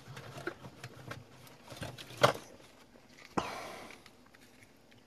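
Small clicks, taps and rustles of things being picked up and handled on a workbench, with a sharp knock about two seconds in and another sharp click a little over three seconds in, followed by a short fading rush of noise.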